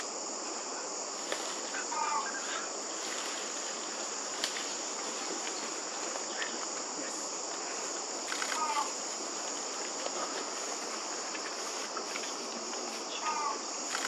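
Steady high-pitched insect chorus, with three short falling chirps spread through it.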